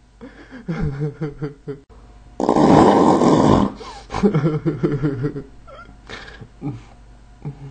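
A man's voice making strained, rapidly pulsing wordless vocal sounds, broken about two and a half seconds in by a loud harsh rasping cry lasting about a second, then more of the pulsing sounds.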